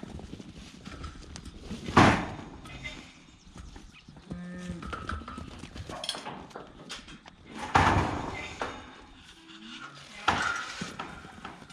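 Dohne and White Suffolk sheep bleating in the yards: three loud bleats and some fainter calls between them.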